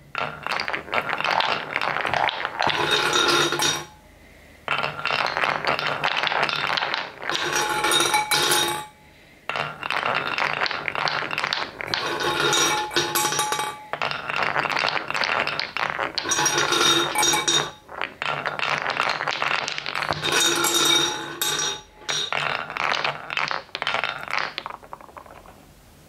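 Wooden balls rolling and clattering along a wooden block marble run's carved wavy track, clicking against each other and the wood in long runs of dense rattling. Brief pauses come about four and nine seconds in, and the clatter dies away near the end.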